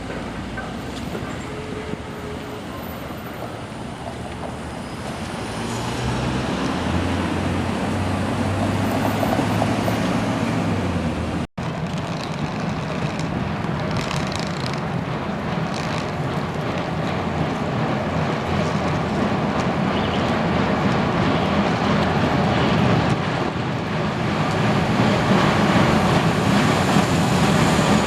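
Street traffic noise with vehicles passing, and a steady low hum for several seconds in the first half. After an abrupt cut, the traffic noise builds steadily toward the end.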